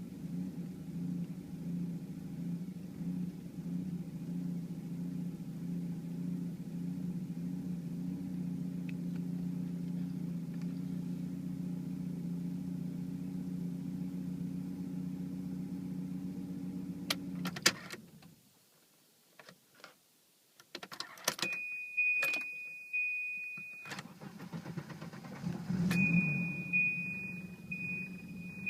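1991 Volvo 740 Turbo's turbocharged four-cylinder engine idling roughly, a fault the owner traced to a bad radio suppression relay. About two-thirds of the way through, the engine is switched off with a few clicks; a steady high warning beep sounds, and the engine is restarted and idles again with the beep still going.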